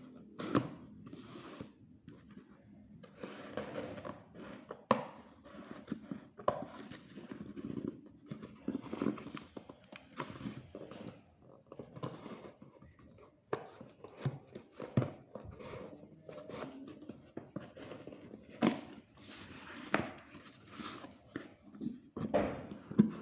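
Unboxing a smartphone: packaging tearing and rustling as the box is handled, with irregular sharp taps and knocks.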